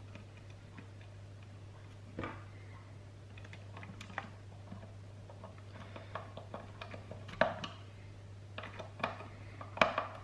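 Small Phillips screwdriver driving a screw back into the plastic housing of a Dyson V6 handheld vacuum, giving scattered light clicks and taps of metal on plastic. The clearest clicks come a little past the middle and again near the end.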